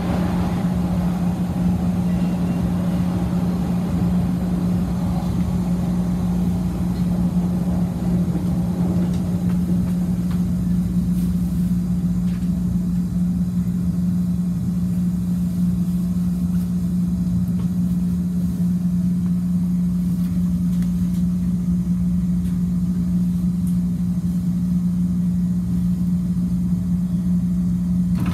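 Inside a CTA 2600-series rapid-transit railcar: a steady low hum holds throughout while the rumble of wheels in the subway tunnel fades over the first ten seconds or so as the train slows into a station.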